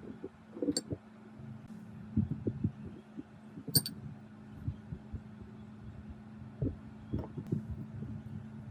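Irregular low knocks and thumps over a steady low hum, with a sharp click near the middle.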